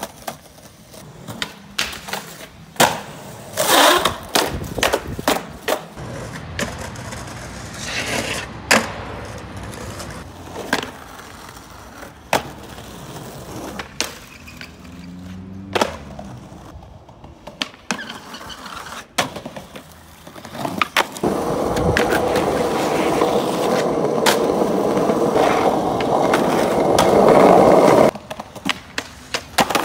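Skateboard wheels rolling on concrete, broken by many sharp clacks of the board popping, slapping and landing. Near the end comes a long, loud, steady rumble of the wheels rolling, which cuts off suddenly.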